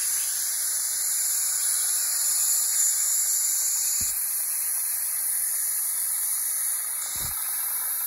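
Steady hiss of dental high-volume evacuation suction drawing air through a DryShield mouthpiece and a Nu-Bird suction mirror, with a faint knock about four seconds in and another about seven seconds in.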